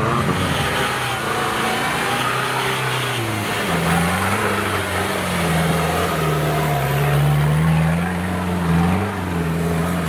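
Off-road trial 4x4 engine revving under load, its pitch wavering up and down as the vehicle climbs.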